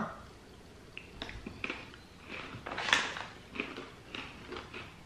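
Crisp coated pretzels being chewed: a string of short, irregular crunches, the loudest about three seconds in.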